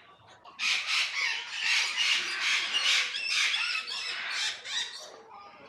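A crowd of birds squawking: dense, shrill, rapid calls that start about half a second in and thin out near the end.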